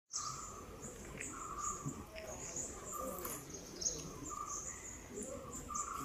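Forest birds and insects calling: short chirps repeating throughout at two pitches, a mid one and a very high one.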